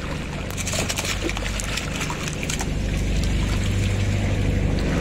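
Water splashing and sloshing at the surface as a whale shark feeds with its mouth at the surface among bait fish, over a steady low motor hum.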